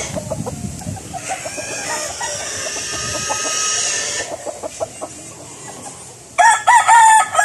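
Roosters clucking, then one rooster crows loudly near the end, a long call of several rising and falling notes.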